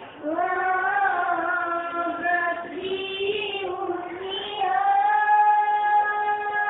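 A young female voice singing a sholawat, an Islamic devotional song, in long drawn-out notes that glide in pitch. The last note is held for about two seconds near the end.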